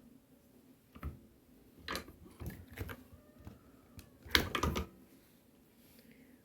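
Hand-lever button press worked to make a 1-inch pin-back button: a series of metallic clicks and clunks from the handle, sliding die and button shell parts, the loudest clatter about four seconds in.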